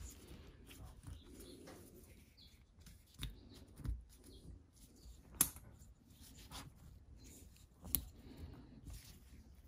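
Small metal parts and hand tools being handled during a hydraulic valve block rebuild: faint rustling with four sharp clicks. The two loudest clicks come about halfway through and near the end.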